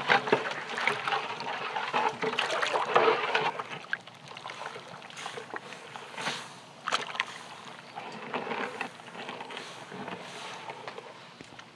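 A wooden paddle stirring broth in a large aluminium stockpot, with irregular sloshing and splashing strokes that are louder for the first few seconds and quieter after. The stirring keeps the broth from sticking to the bottom of the pot.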